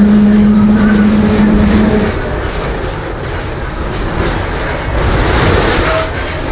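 Mercedes-Benz OF-1721 bus running at low revs, with a steady hum for about the first two seconds that then gives way to rough running and road noise. The title puts the growl down to the differential.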